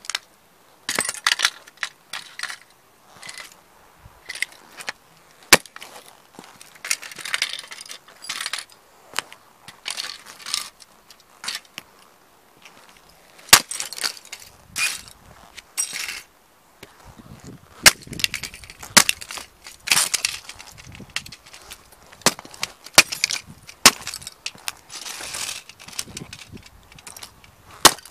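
Hiking boots stomping on and grinding a toy model car into concrete: irregular sharp cracks as the plastic body snaps, with gritty crunching and scraping of the broken fragments under the soles between them.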